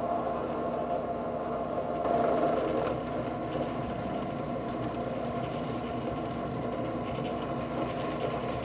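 WEN 8-inch benchtop drill press running steadily while a 1/16-inch bit drills a pilot hole through a steel ball joint's bottom cap, a little louder about two seconds in.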